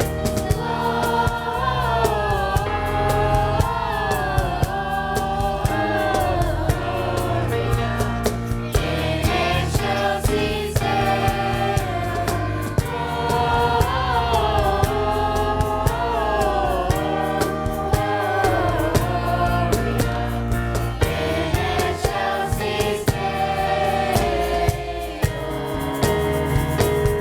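A choir of voices singing a song with instrumental accompaniment: sustained bass notes under a steady beat.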